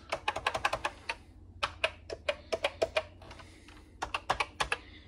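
Keys being typed on a Commodore VIC-20 (VIC-1001) keyboard: a quick run of clicky keystrokes in the first second, a sparser run of presses in the middle, and another quick run near the end.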